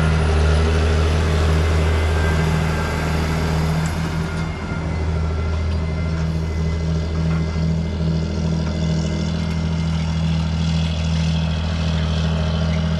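Large John Deere farm tractor's diesel engine running steadily under load as it pulls a field cultivator past. It is a deep, even drone that dips briefly about four seconds in.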